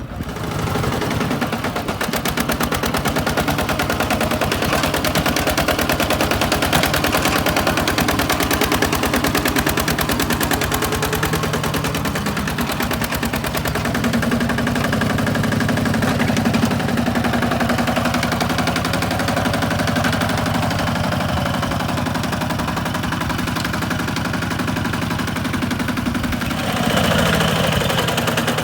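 Single-cylinder diesel engine of a two-wheel walking tractor running hard with a rapid, even knock. The pitch and rumble shift a little near the end.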